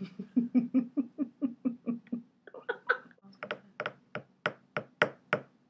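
Women laughing in a run of short, even pulses about four a second, breaking off about two seconds in, then picking up again louder and a little slower.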